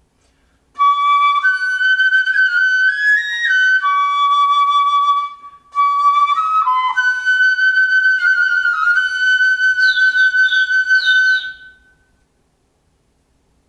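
Flute playing two short high phrases, with some notes bending and sliding in pitch and vibrato on the last held notes.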